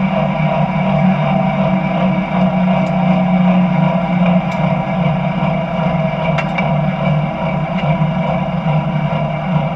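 Jet engine on the Bone Shaker jet semi truck running steadily at idle, heard loud and close from a camera mounted on the truck.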